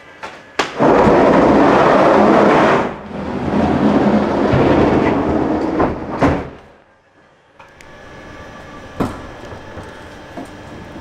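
Electric pallet truck running across a trailer's metal-lined floor, a loud rumble and clatter broken by sharp knocks. It drops off about seven seconds in to a quieter steady rumble with a few more knocks.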